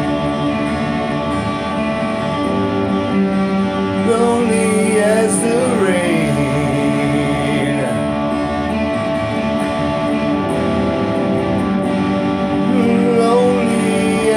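Song music with guitar over held chords, a melody line sliding up and down in pitch across it.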